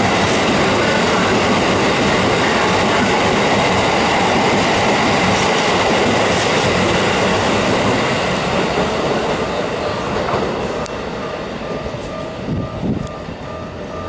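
Keikyu 2100-series limited express train running through the station at reduced speed, its wheels clattering over the rail joints. The noise stays loud and steady, then fades from about eight seconds in as the last cars move away.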